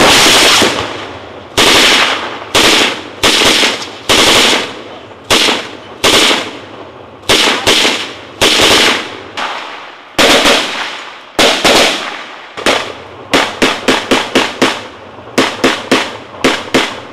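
Gunfire in combat: a long series of loud, sharp reports with echoing tails. They come about a second apart at first, then quicken into rapid runs of several shots a second from about thirteen seconds in.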